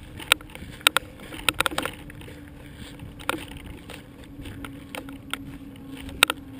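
Handling noise on a GoPro mounted under a model airplane that is being carried by hand: short sharp knocks and rubbing against the camera housing, over a steady low hum.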